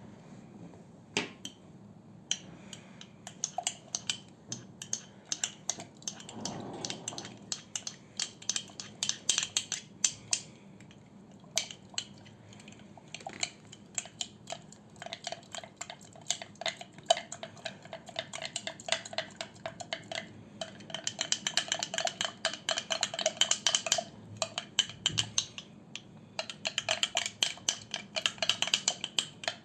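A spoon stirring a mixture in a bowl, clinking against the side with a light ringing tone. The strokes are sparse and uneven at first, then come in fast, steady runs in the second half with a short pause between them.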